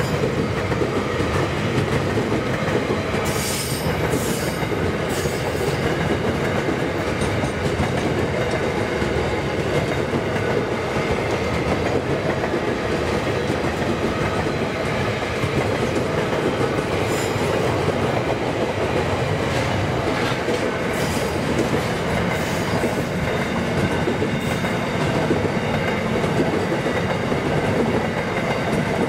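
Freight train wagons rolling steadily past at a level crossing, a continuous rumble and clatter of steel wheels on rail. Brief high-pitched wheel squeals come through a few times, most strongly about three to five seconds in.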